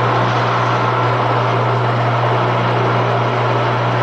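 Countertop blender running steadily, its motor whirring as it beats a thick batter of grated cassava, milk, coconut milk, butter and eggs.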